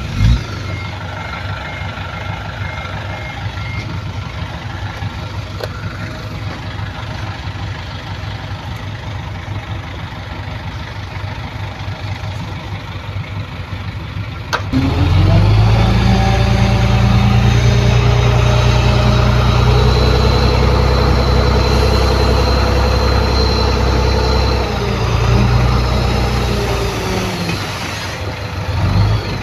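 Heavy diesel machinery running at a steady moderate level, with an on-off beeping like a reversing alarm in the first few seconds. About halfway through the engine revs up sharply and runs loud under load, then eases off near the end.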